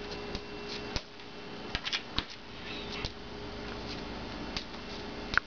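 A hen tapping on a hard kitchen floor: scattered sharp clicks, about eight of them, spaced unevenly.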